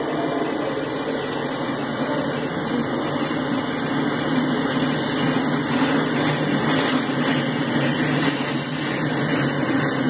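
Freight train boxcars rolling past: a steady rumble of steel wheels on rail.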